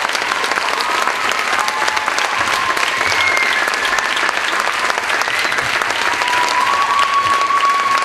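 Audience applauding, dense and steady, with a few long whoops held over the clapping.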